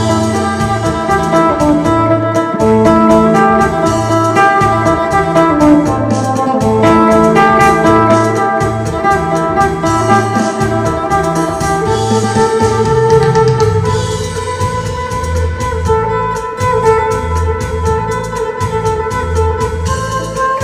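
Isan phin, a three-string plucked lute, playing a lam phloen tune over sustained organ-like chords and a steady, repeating bass pulse.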